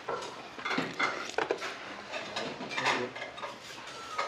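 Spicy mixed hand-cut noodles (bibim kalguksu) being slurped in several short pulls, with chopsticks clicking against a stainless steel bowl.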